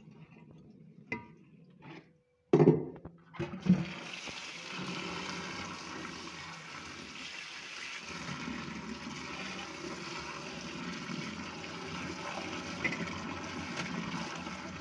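A few soft clicks, then two loud knocks about two and a half and three and a half seconds in. After that, tap water runs steadily into a steel pot of chopped fenugreek and spinach leaves, swished by hand to wash out the soil.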